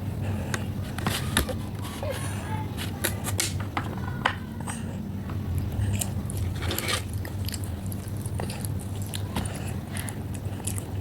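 A child biting and chewing green grapes close to the microphone: many short, sharp clicks of bites and mouth sounds, over a steady low hum.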